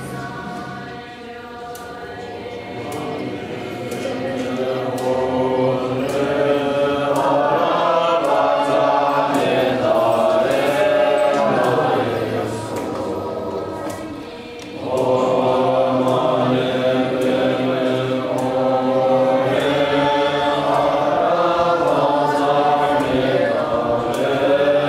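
A group of Tibetan Buddhist monks chanting together in unison, many voices on sustained pitches. The chant drops away briefly a little past halfway, then comes back in at full strength.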